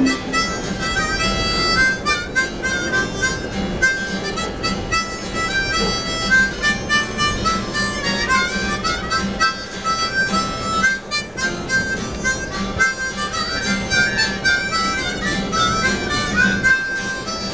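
Several harmonicas playing a quick instrumental break together, many short notes over a steady low hum.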